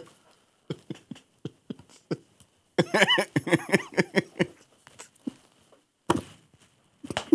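Stifled laughter: short breathy snorts and gasps, breaking into a longer fit of laughing about three seconds in, then trailing off into a few more gasps.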